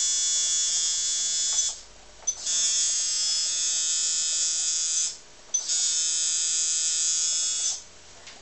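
Hildebrandt .30 Carbine tattoo machine buzzing steadily, run from the power supply's centre button without the foot pedal. It cuts out and restarts twice, about two and five seconds in, and stops near the end.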